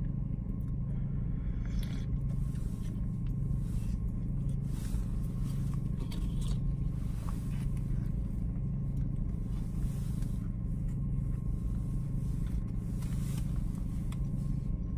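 Steady low engine drone with an even pulsing beat, heard inside a car's cabin, with a few faint rustles and clicks of movement in the seat.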